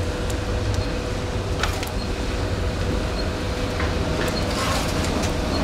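Briquette production-line machinery running steadily: a low hum with a held mid-pitched tone and a few faint clicks.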